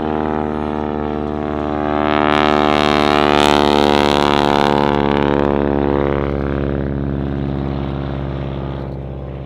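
Radial engine and propeller of a Boeing Stearman N2S-4 Kaydet biplane in flight, passing by: the steady engine note grows louder to a peak with a rush of propeller noise about three to four seconds in, then fades.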